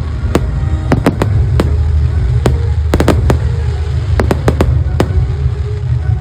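Fireworks going off: about fifteen sharp cracks and bangs at irregular intervals, some in quick clusters, over a steady low rumble.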